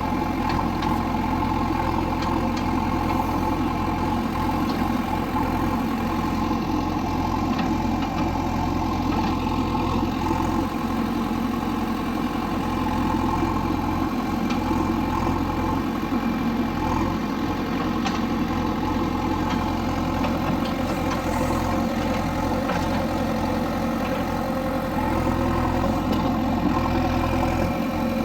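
JCB backhoe loader's diesel engine running steadily at an even speed.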